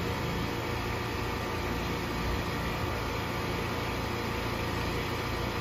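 Trane XR16 4-ton air conditioner condenser running steadily, its compressor hum and outdoor fan making an even whir. It has just started cleanly on generator power through a soft starter.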